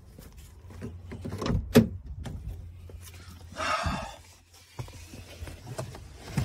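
Car door being opened: a sharp latch clunk about two seconds in, then about half a second of scuffing a couple of seconds later, with a few lighter knocks.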